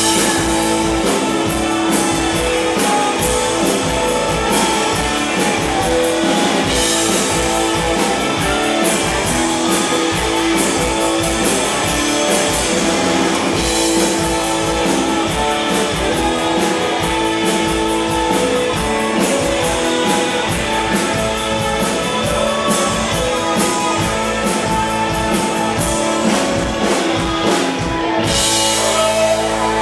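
Rock band playing live and loud: electric guitars over a driving drum kit.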